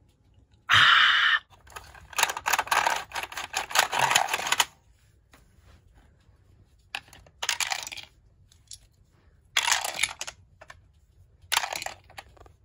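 Plastic toys being handled and clattering together in several short bursts of rattling and clicking, with quiet gaps between.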